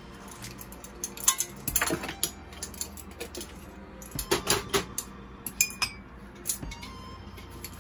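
Measuring spoons clattering against one another and tapping the pot as ground spices are spooned onto breadfruit chunks: a cluster of sharp clinks about a second and a half in, and another about four and a half seconds in.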